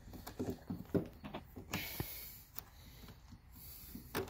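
Scattered metallic clicks and light knocks as hand tools and battery cable clamps are handled, with a brief scraping hiss about two seconds in.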